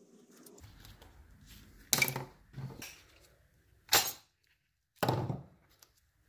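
Thin copper sheet being cut and handled: four short, sharp metallic crunches and clacks, roughly a second apart.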